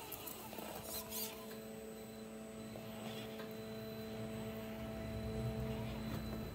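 RC rock crawler's Holmes Hobbies CrawlMaster Sport 550 brushed motor and geartrain whining at a steady pitch as it crawls at a constant slow speed, cutting off near the end. A few sharp clicks sound about a second in.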